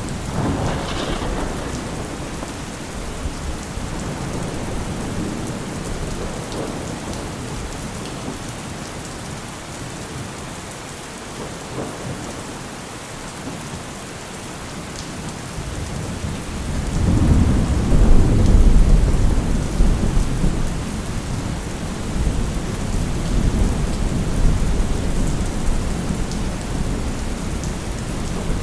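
Steady rain with rolling thunder. A rumble fades out over the first few seconds, and a louder, deep peal builds about sixteen seconds in, peaks a couple of seconds later and slowly rolls away.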